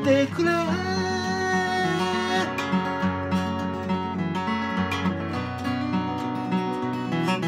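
Morris TF-80 acoustic guitar fingerpicked in three-finger style: a steady alternating bass under melody notes on the treble strings. A man's sung note trails off in the first half-second, and the guitar plays on alone.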